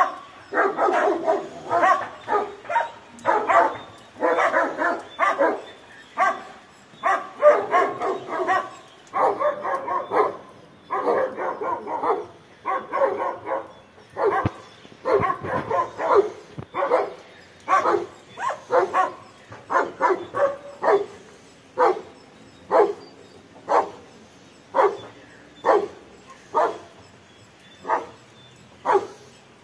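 A caged dog barking without pause at a leopard prowling just outside its cage, alarm barking at a predator. The barks come in rapid runs at first, then settle to about one bark a second in the second half.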